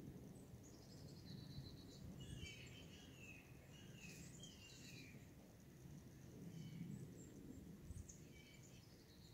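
Near silence with a faint low background rumble and scattered faint bird chirps, a cluster about two to five seconds in and more near the end.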